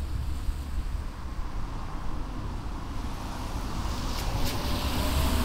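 Low wind rumble on the camcorder's built-in microphone, with a car on the street growing louder over the last couple of seconds.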